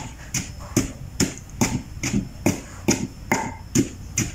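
Wooden pestle pounding into a heavy stone mortar, crushing a herb and spice paste (kroeung). The strokes come in a steady rhythm of about two and a half a second, each a sharp, dull knock.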